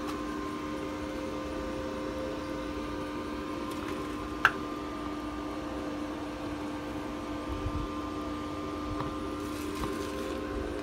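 A steady mechanical hum of a few constant tones, as from a machine's fan or motor running, with a single sharp click about four and a half seconds in.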